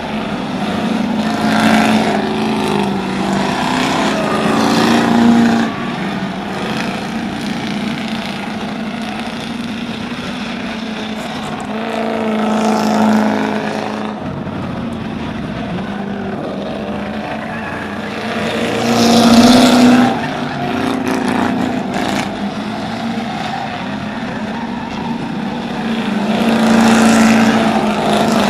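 Ford Crown Victoria race cars with 4.6-litre V8s running laps under race throttle. Their engines drone steadily, and four times the sound swells and falls away in pitch as cars pass close by.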